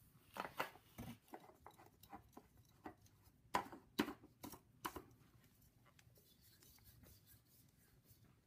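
Faint clicks and light scraping of a metal oil filter canister being handled and spun by hand onto its threaded mount, the sounds coming mostly in the first five seconds.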